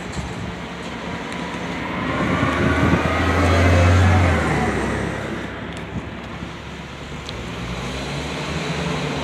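A road vehicle passing by, growing louder to a peak about four seconds in and then fading away.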